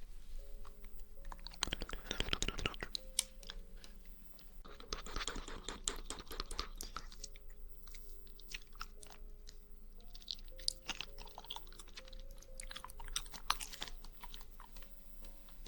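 Close-miked mouth sounds of someone eating jelly: wet clicks, smacks and chewing, thickening into two dense runs about two seconds in and again around five to seven seconds in.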